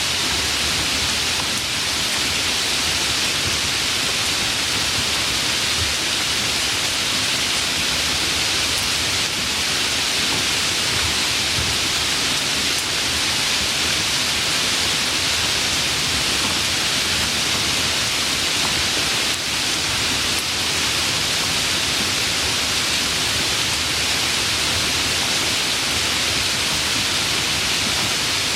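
Steady rain sound, an even hiss of falling rain with no breaks or single drops standing out.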